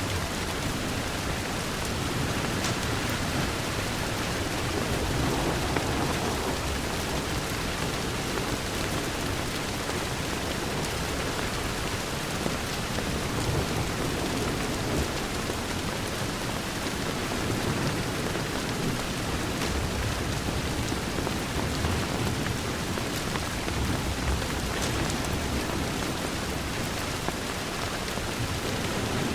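Steady rain on a window glass, an even hiss with low rumbling swells that rise and fade every few seconds.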